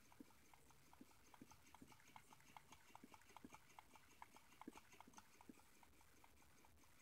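Homemade tin-can Stirling engine running, its crank linkage and CD flywheel making faint, regular clicking about four times a second, with irregular heavier knocks mixed in.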